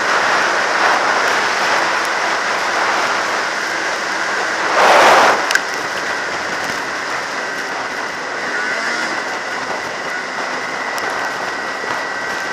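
Ski-Doo MXZ 700 two-stroke snowmobile running at trail speed, its engine and track noise mixed with wind rushing over the microphone and a thin steady whine. About five seconds in there is a brief louder rush that ends in a sharp knock.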